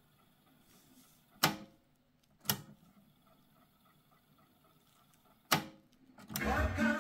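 Three sharp mechanical clacks from the transport keys of an Akai CS-732D cassette deck being pressed, the first two about a second apart and the third some three seconds later, over a faint hiss. Music starts playing from the deck near the end.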